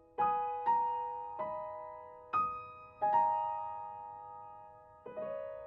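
Slow, sparse background piano music: single notes and soft chords struck every half second to a second, each ringing on and fading away.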